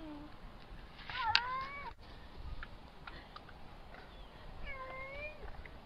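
Domestic cat meowing twice: a short call that rises and then levels, about a second in, and a longer, bending call near the end, with a few faint ticks between them.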